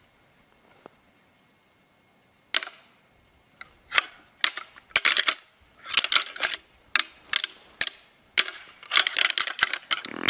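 Irregular bursts of sharp crackling and snapping rustles, beginning about two and a half seconds in and coming more and more often toward the end.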